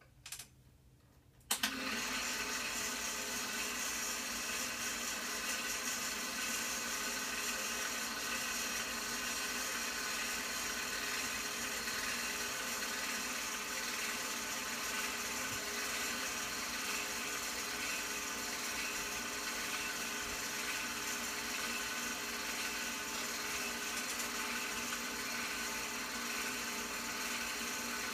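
Film projector running: a steady motor whir with a constant hum of several even tones, starting with a click about a second and a half in.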